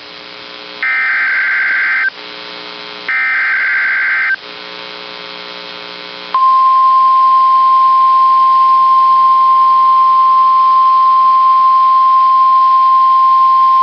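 NOAA Weather Radio Emergency Alert System broadcast through a weather radio's speaker: two short buzzy SAME data-header bursts over a low hum, then about six seconds in the steady 1050 Hz warning alert tone begins. It announces a warning-level alert, here a severe thunderstorm warning.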